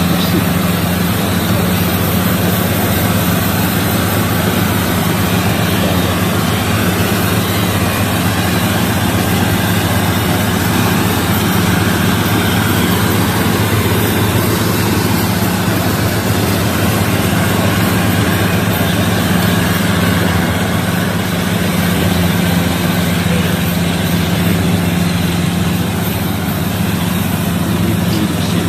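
Gatra rice combine harvester running steadily while it cuts and threshes standing rice: a constant engine hum with a hiss over it.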